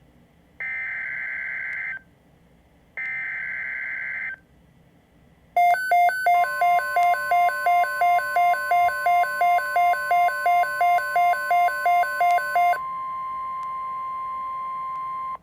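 Emergency Alert System activation on NOAA Weather Radio for a severe thunderstorm watch. First the last two of the three screeching SAME data bursts of the digital header, each about a second and a half long. Then the steady 1050 Hz warning alarm tone, with a harsh beep pulsing about three times a second over it for some seven seconds; near the end the steady tone carries on alone.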